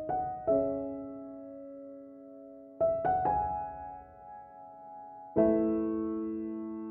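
Background music: slow, soft piano, chords struck every few seconds and left to ring and fade.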